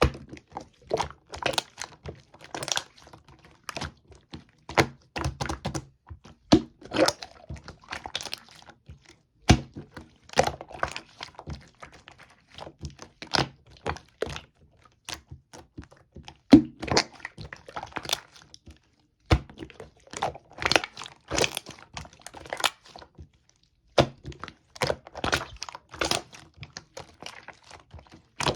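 Fondant slime made with Elmer's glue being pressed, folded and poked by hand. It gives irregular clusters of sharp clicks, snaps and small pops, with brief pauses between handfuls.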